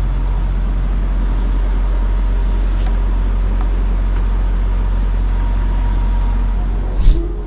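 Steady low hum of an idling diesel semi-truck engine. Near the end a single loud bang, like a door shutting, after which the engine sound drops away.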